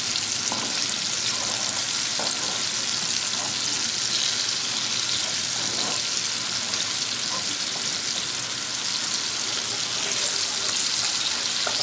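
Battered bass nuggets frying, a steady sizzling hiss.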